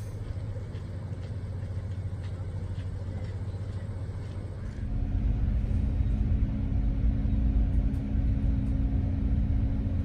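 Steady low rumble of an idling engine, with a few faint clicks at first. About five seconds in it grows louder and a steady droning hum comes in.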